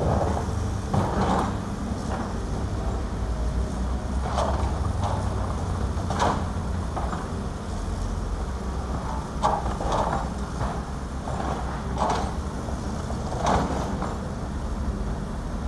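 Caterpillar 320 hydraulic excavators working, their diesel engines running steadily, with short scrapes and clanks from the buckets in soil and rock every second or two.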